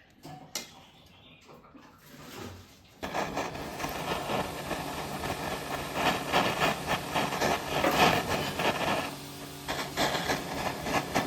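Bench work on a ring: a few light clicks and taps, then about three seconds in a steady mechanical noise starts, like a small motor tool running with rapid scraping and rubbing against metal.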